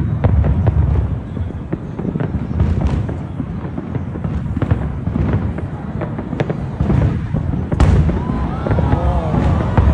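Fireworks display: a fast run of bangs and crackles over a steady low rumble, the loudest bang about eight seconds in.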